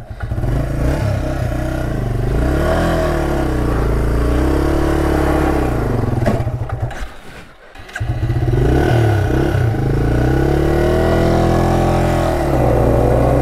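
Yamaha TW200's single-cylinder four-stroke engine revving hard in repeated rising and falling surges, with the rear tyre spinning for grip, hard enough that the rider smells burning rubber. The engine drops away briefly about seven seconds in, then revs up again.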